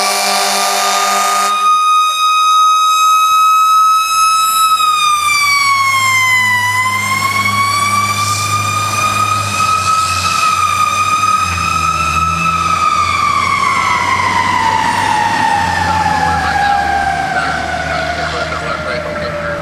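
Fire engine's siren winding up to a steady wail, dipping and rising again about six seconds in, then slowly winding down in pitch over the last several seconds, in the manner of a mechanical siren. A horn blast sounds over it for the first second and a half, and the truck's engine runs underneath as it pulls away.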